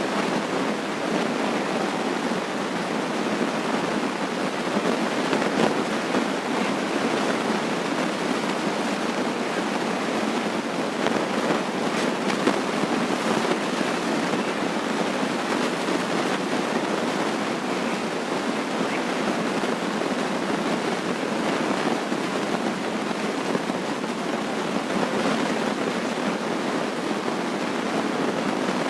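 Loud, steady rushing noise that sounds like heavy rain, even and unchanging with no distinct drops, knocks or tones in it.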